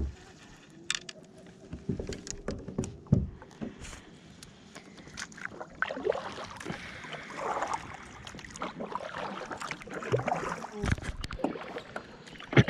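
Kayak paddle strokes dipping and splashing through water, with scattered knocks and clicks throughout; the splashing gets denser about halfway through.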